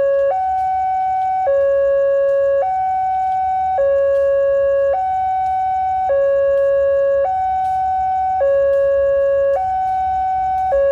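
Two-tone electronic warning alarm alternating steadily between a higher and a lower note, each held for a little over a second.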